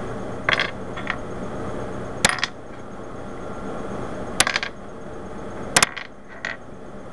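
Loose plastic Rubik's Cube pieces clicking against each other and the table as they are picked through and set down: a handful of sharp clicks a second or two apart, some in quick pairs.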